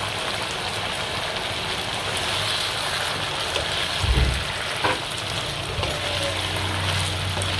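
Thick syrupy sauce bubbling and sizzling in a non-stick wok as it simmers down to thicken. A wooden spatula stirs through it, with a dull knock against the pan about four seconds in.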